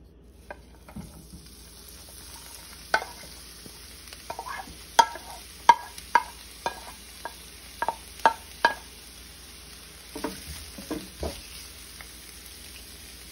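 Chopped onion, bell peppers and herbs sizzling in hot oil in a nonstick pan, starting about half a second in, as they are scraped off a plate with a wooden spoon. The spoon knocks against the plate and pan in a quick run of clacks through the middle, with a few softer knocks near the end.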